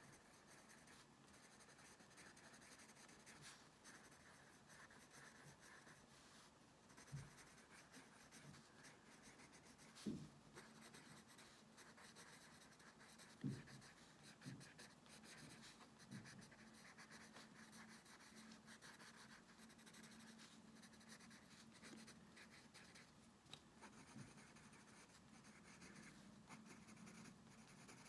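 Faint, steady scratching of a green pencil crayon shading on sketchbook paper. A few soft low knocks are heard, around 7, 10 and 13.5 seconds in.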